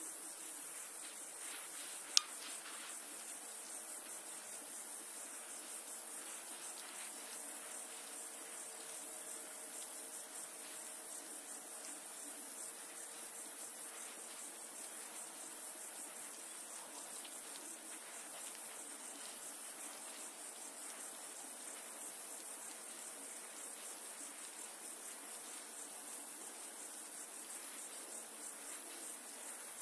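Steady high-pitched insect trilling over a low hiss, with a single sharp click about two seconds in.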